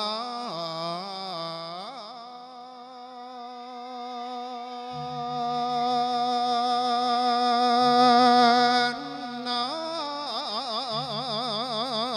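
A monk singing an Isan-style melodic sermon (thet lae), drawing out long held notes without clear words. The voice dips about two seconds in, swells to its loudest around eight seconds, then moves into a wide wavering vibrato near the end.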